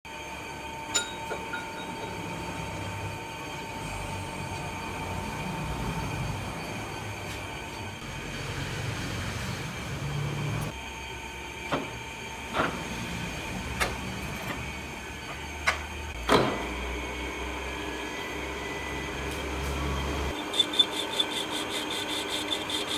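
Yamazaki metal lathe running steadily, with several sharp clunks in the middle as the headstock gear levers are shifted. Near the end the cutting tool starts on the spinning steel shaft, adding a fast, regular chatter.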